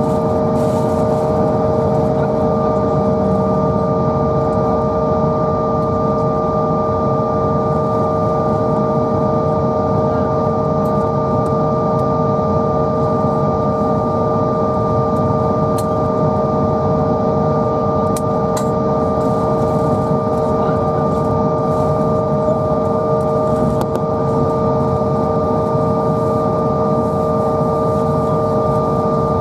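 Bombardier CRJ900 taxiing, heard inside the cabin: its tail-mounted General Electric CF34 turbofans whine steadily at idle, three even tones over a steady rumble.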